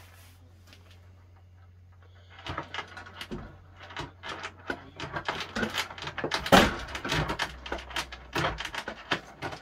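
A large wooden forge bellows worked by its hanging chain and lever: a rapid run of wooden knocks and chain rattles that starts a couple of seconds in, with one louder thump about halfway through.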